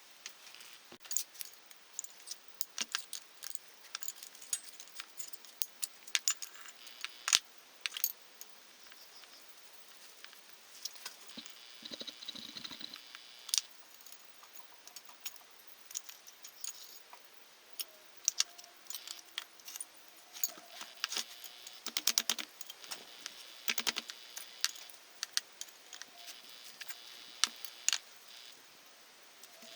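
Small metal parts clinking and rattling as they are handled, with many scattered sharp taps and a few short metallic rings.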